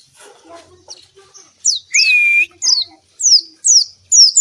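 White-eye (pleci) singing vigorously: a quick run of sharp whistled notes, each sliding down in pitch, with one longer, lower held whistle about two seconds in.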